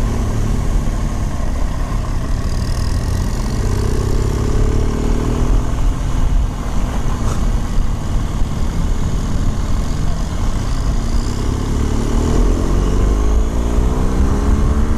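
Wind rush and motorcycle engine noise while riding, with the engine note rising as the bikes accelerate about four seconds in and again from about eleven seconds. The exhaust of the motorcycle ahead, heard from behind, is judged not too loud.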